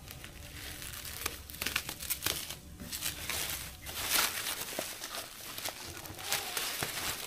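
Packaging being handled, crinkling and rustling in irregular bursts with a few short sharper crackles. The loudest rustle comes about four seconds in.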